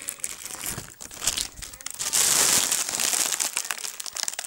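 Foil helium balloon crinkling as it is squeezed and handled at the mouth. About two seconds in, a louder hiss of gas rushing through the balloon's neck lasts roughly a second as the helium is breathed in.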